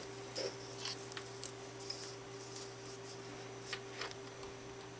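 Faint, scattered small plastic clicks and scrapes as the retainer clip is pried off the back of an HP/Compaq laptop keycap with a precision screwdriver, over a steady low hum.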